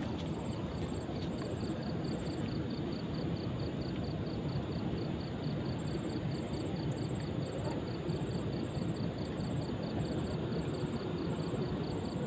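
Insects chirping at night in rapid, regular pulse trains, with a second, higher chirp repeating about once a second from halfway in. Under them runs a steady low rushing noise.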